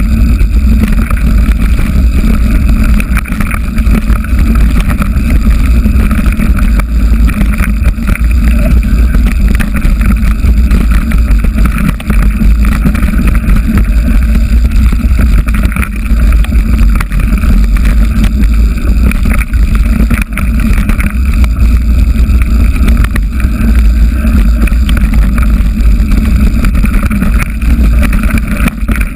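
Loud, steady rumble of wind and trail noise on a GoPro mounted on a mountain bike riding fast down a rocky dirt singletrack, with constant small clicks and knocks as the bike jolts over stones.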